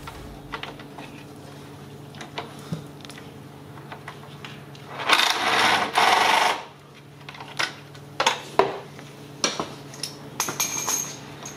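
Cordless impact tool running in one burst of about a second and a half, about five seconds in, as it backs out a 10 mm bolt on top of the transmission. Light metallic clicks and taps follow as the bolt and tool are handled.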